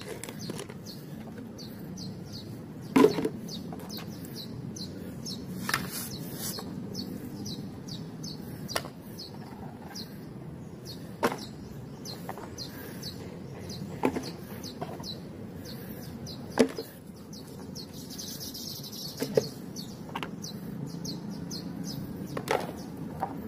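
Muddy plastic toy animals being picked up and set or dropped into a container one by one: a sharp plastic knock every two to three seconds, over a steady low hiss.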